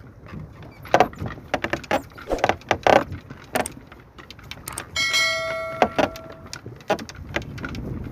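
Irregular clatter of clicks and knocks as a wet fishing net is hauled and handled by hand on a wooden boat. About five seconds in, a steady ringing tone sounds for a second and a half over it.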